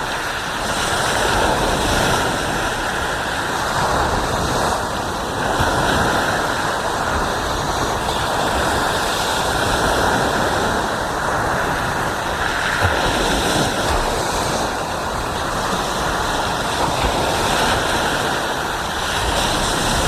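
Ocean waves breaking and washing up on a sandy beach: a continuous surf noise that swells and eases every few seconds.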